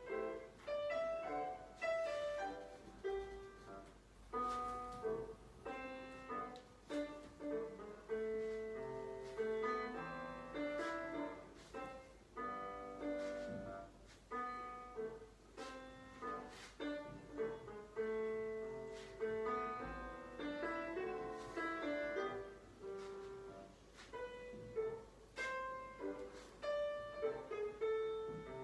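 Solo piano accompaniment for a ballet barre exercise, classical in style, with a steady even pulse of struck notes and chords.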